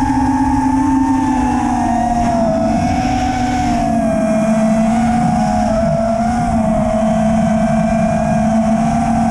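FPV racing quadcopter's brushless motors and propellers whining at a steady cruising throttle, the pitch wavering slightly with small throttle changes and dipping a little about three seconds in.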